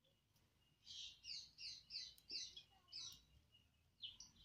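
A bird calling: a run of about seven quick, high chirps over two seconds, each sliding down in pitch, then a couple more near the end.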